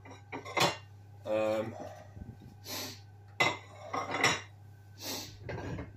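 Crockery clinking and knocking: plates being shifted against one another while one is taken out of a kitchen cupboard, in a series of separate clinks and scrapes.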